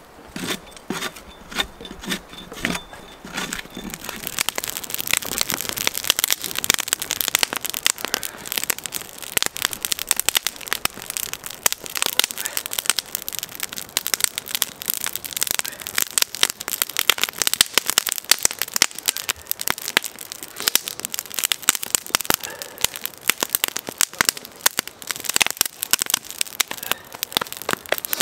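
Campfire of damp wood crackling and snapping as it catches, the crackling growing denser and louder about four seconds in.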